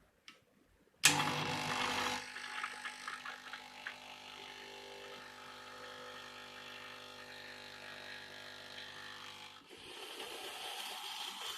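A Nuova Simonelli Oscar espresso machine clicks on, and its vibratory pump starts suddenly and runs with a steady buzz. Near the end the buzz gives way to a rushing hiss.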